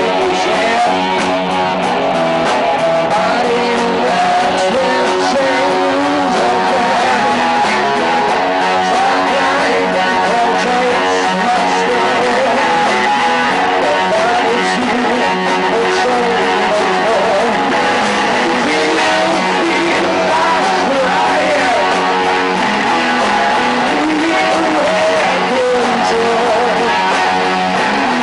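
Rock band playing, with electric guitars and a male voice singing.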